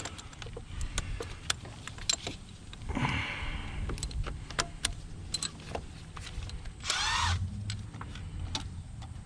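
Socket ratchet wrench clicking in a quick run about seven seconds in as a bolt is loosened, with scattered clinks and knocks of tools and a brief scrape about three seconds in.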